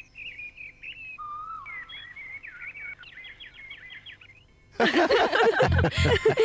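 Small birds chirping in quick, repeated runs of chirps. About five seconds in, much louder background music cuts in over them.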